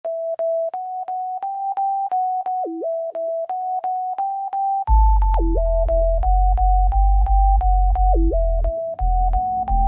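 Intro of a reggaeton song: a plain synth keyboard melody of short repeated notes, joined about halfway by a heavy deep bass beat.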